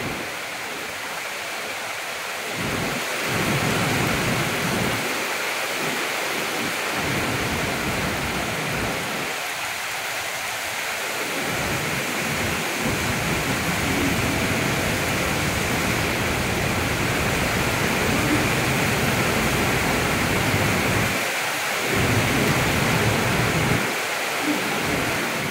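Wind buffeting the microphone in uneven gusts of low rumbling over a steady rushing hiss.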